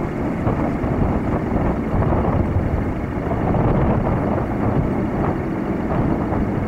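Steady rumble of a distant twin-jet airliner on final approach, mixed with wind buffeting the microphone.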